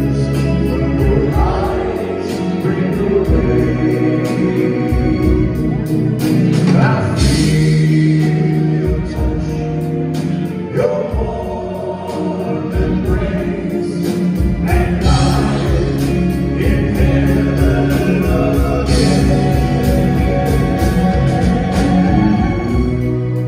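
Male vocal group singing a slow pop ballad in close harmony, backed live by electric bass, drums, guitar and keyboards.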